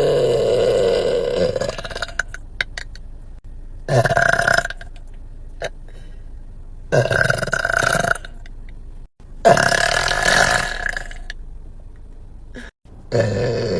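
A woman burping loudly five times: a long drawn-out burp of about two seconds first, then four shorter burps about three seconds apart.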